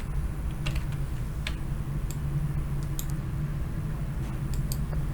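A few scattered clicks of a computer keyboard, over a steady low hum.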